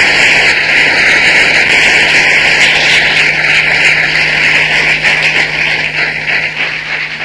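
Audience applauding, steady and then fading away near the end.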